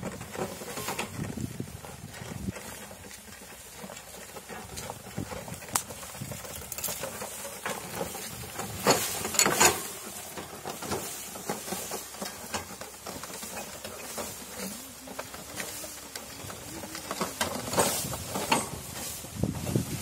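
Wooden bullock cart rolling along a rough dirt farm track: irregular knocks, creaks and rattles, with louder clatters about nine and eighteen seconds in.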